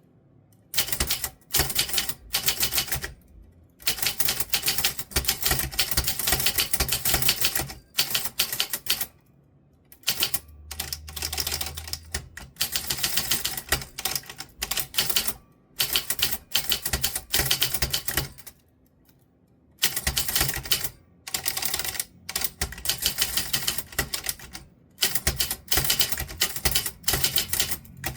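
Typewriter keys being struck in quick runs of typing, with short pauses between the runs.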